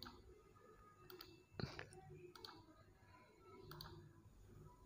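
Faint computer mouse clicks, about four spaced out with gaps between, over near-silent room tone.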